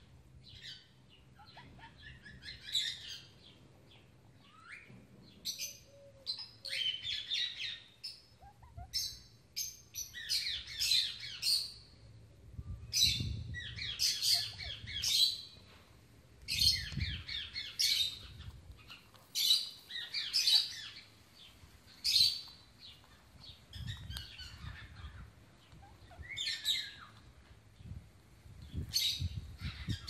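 Parrots chirping and squawking: short calls repeated in quick runs, with brief pauses between the runs.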